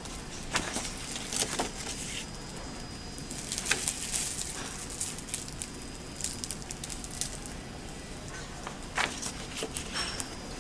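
Hot laminating machine (DSB-FM380) drawing a printed poster through its rollers: the sheet and film crackle and rustle in scattered bursts, busiest about three to four seconds in and again around nine seconds, over a steady faint machine noise with a thin high tone.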